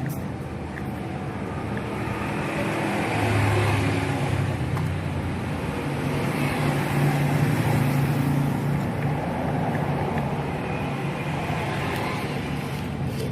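Engine rumble with a low hum, like passing road traffic, swelling over the first several seconds and then easing off.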